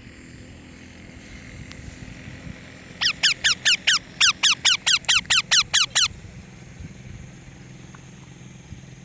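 A parrot calling a rapid run of about fifteen sharp, high notes, each falling steeply in pitch, about five a second for some three seconds, with one brief break partway through.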